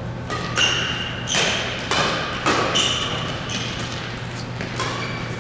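Badminton rackets hitting a shuttlecock back and forth in a doubles rally: a string of sharp hits, each with a short ringing ping from the strings.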